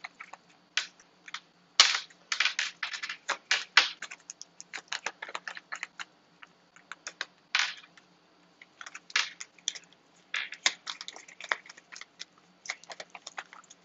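A tarot deck shuffled by hand: a long run of quick, irregular papery flicks and slaps of cards, with a few short pauses.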